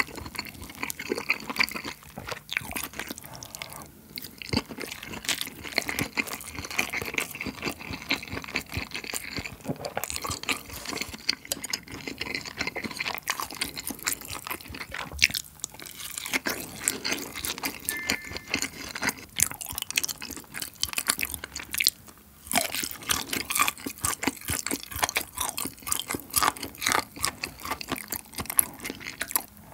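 Close-miked chewing and wet mouth sounds of eating braised spicy chicken with beef tripe and rice, with occasional crunching and light clicks of a spoon and chopsticks against the dishes.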